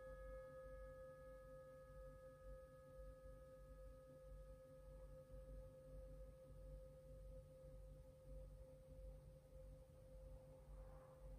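A single faint struck bell tone, such as a meditation singing bowl, ringing on and fading very slowly. Its higher overtones die away within a few seconds, leaving one steady pitch. A low room hum runs underneath.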